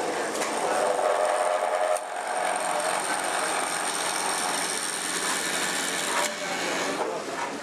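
A small power tool running against wood with a steady high whine. The sound changes about two seconds in and cuts off just after six seconds.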